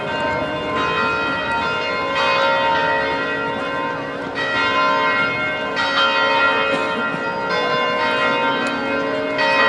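Bells ringing: several tones struck together, with a fresh round of strokes every one and a half to two seconds, each round ringing on into the next.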